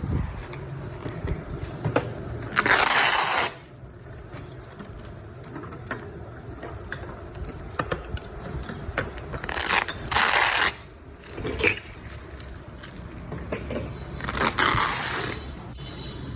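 Parcel packaging being torn open and crumpled: three loud rasping bursts of about a second each, with scattered clicks and handling knocks between.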